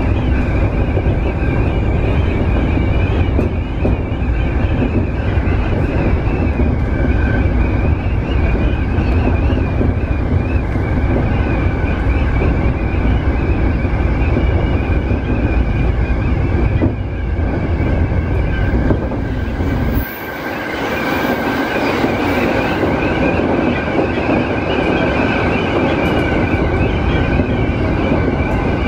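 E231-series electric train running on the Joban Line, heard from inside the driver's cab: a continuous rumble of wheels on rail with a steady high whine over it. About two-thirds of the way through, the low rumble suddenly drops away while the whine goes on.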